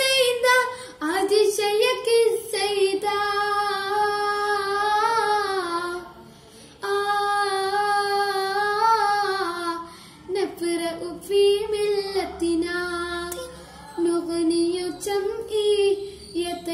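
A boy singing a Malayalam song solo, holding long notes that waver in pitch, with short breaths between phrases, one about six seconds in.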